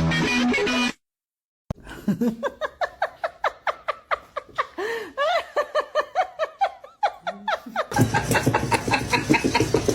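A person laughing in a run of short, rhythmic bursts, getting louder about eight seconds in. Before it, a second of music cuts off suddenly.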